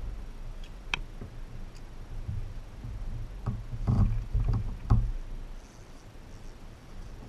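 Handling noise in a fishing kayak: low bumps and knocks on the hull, with a few sharp clicks, loudest about four to five seconds in.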